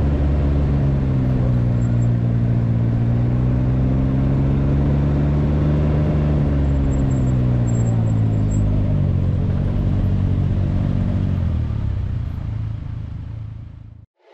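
Motorcycle engine running at low revs. Its pitch rises slightly and falls again, then it fades away and cuts off suddenly near the end.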